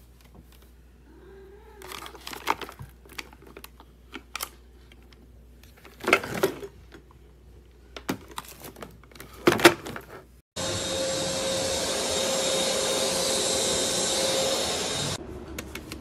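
Plastic clicks and knocks of a corded stick vacuum and its cord being handled, with a few louder thumps. About ten seconds in, the vacuum's motor runs with a steady whine for about five seconds, then cuts off abruptly.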